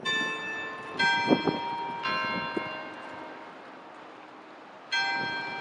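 Tower bells chiming four struck notes of slightly different pitch, each ringing on and fading. The first three come about a second apart, then there is a pause of nearly three seconds before the fourth. A couple of short low knocks sound between the second and third strikes.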